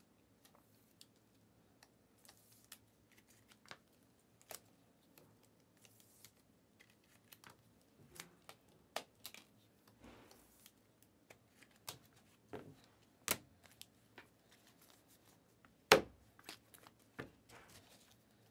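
Panini Prizm basketball trading cards and packs being handled: scattered light clicks, snaps and rustles as cards are stacked and packs opened, growing busier partway through, with one sharper knock near the end.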